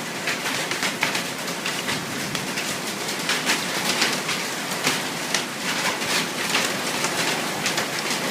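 Hailstorm: a steady hiss of rain with many irregular, sharp clicks of hailstones striking.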